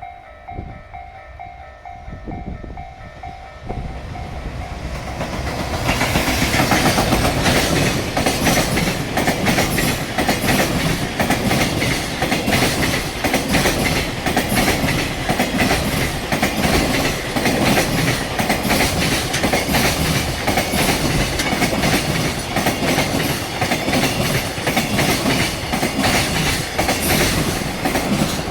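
A level-crossing warning bell rings in a steady pulsing tone as the JR Freight EF210 electric locomotive approaches. From about six seconds in, the freight train passes at speed, and the wheels of the locomotive and its Koki container wagons clatter loudly and rapidly over the rail joints as the wagons stream by.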